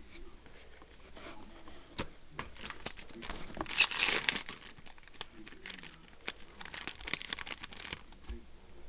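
Foil trading-card booster pack wrapper crinkling and tearing, loudest about four seconds in and again near the end, among light clicks of cards being handled.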